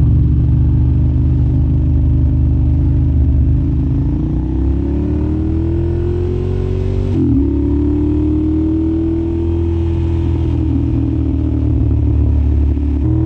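Ducati Monster 1100's air-cooled L-twin engine running loud through an Arrow aftermarket exhaust: steady at first, then the pitch climbs for a few seconds, drops suddenly about seven seconds in as at a gear change, climbs again and eases off, with another sudden change near the end.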